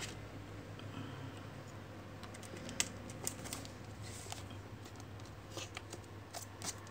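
Fingers handling a trading card in a clear plastic card holder: scattered faint clicks and taps of plastic, the sharpest about three seconds in, over a low steady hum.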